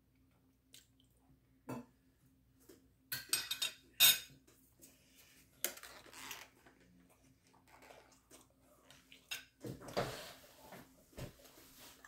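Metal spoon clinking and scraping against a ceramic plate in short, scattered strokes while eating. The loudest clink comes about four seconds in.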